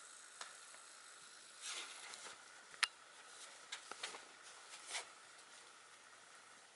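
Faint scratching and rustling of a puppy's paws on the fabric of a laundry hamper, with a few sharp clicks, the loudest nearly three seconds in. A faint steady high whine sits underneath.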